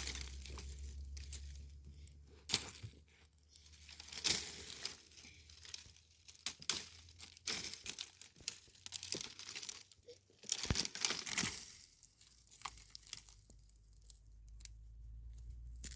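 Irregular rustling and crinkling, like something being crumpled or torn by hand, in uneven bursts over a faint low steady hum.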